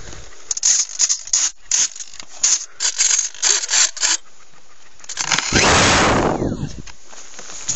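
Footsteps on dry, gravelly dirt, a run of short scuffing steps, then about five seconds in a loud rushing whoosh lasting about a second and a half that falls in pitch.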